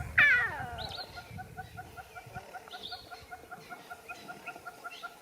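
Animal calls: a loud call that slides down in pitch just after the start, then a fast, even pulsing call that keeps on, with a couple of short high chirps.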